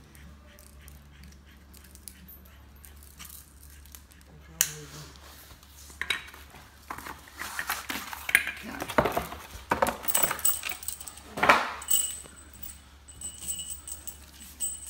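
Loose metal bolts, nuts and washers clinking and rattling as they are sorted by hand into piles. A single click about four and a half seconds in, then a busy run of small metallic clinks and knocks for several seconds.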